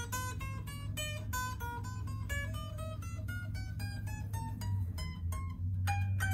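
Left-handed Firebird-style kit electric guitar played as a quick run of single picked notes, about five or six a second, over a steady low hum. He is trying the neck just after setting its relief with the truss rod.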